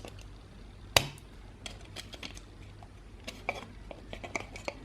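Battery contacts and plastic parts of an Xbox One controller being prised out and handled: one sharp click about a second in, then a run of light, irregular clicks and taps.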